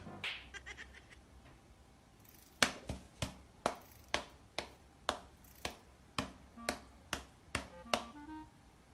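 A series of sharp clicks or taps, about two a second, with faint short musical notes near the end.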